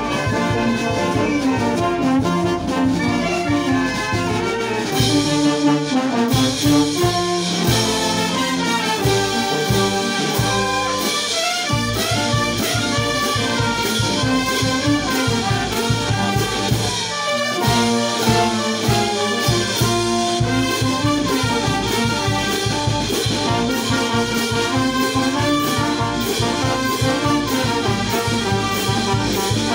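Andean brass band playing a chimaychi and huayno medley: trumpets and trombones carrying the tune over a steady beat on the drum. Hand cymbals join in about five seconds in and keep crashing on the beat.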